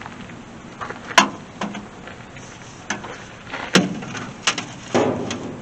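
Several sharp knocks and clanks, the loudest about a second in, with a cluster of others from about three and a half to five seconds in.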